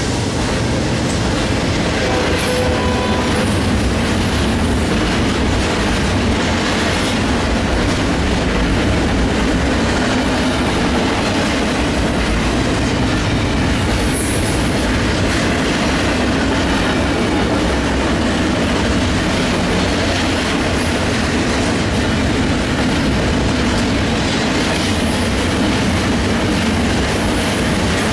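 Double-stack intermodal container cars rolling past on the track: a steady rumble and clatter of steel wheels on the rails.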